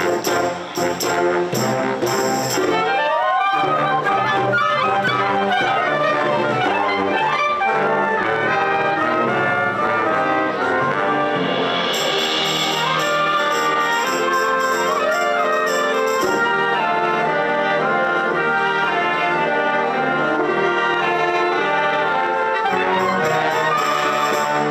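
Instrumental music led by brass instruments such as trumpets and trombones, playing a melody at a steady level, with a few percussion strikes in the first couple of seconds.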